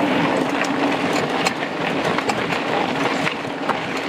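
Mountain bike riding over a rough dirt trail: a steady rushing noise of tyres and air, with frequent sharp clicks and rattles from the bike jolting over the ground.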